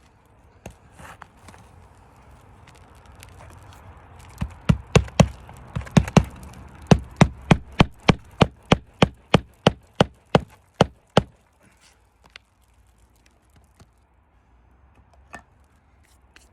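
Hammer blows on a roof, about twenty sharp strikes in quick, even succession at roughly three a second. They start about four and a half seconds in and stop after about eleven seconds. Scraping and handling noise comes before them and a few scattered knocks after.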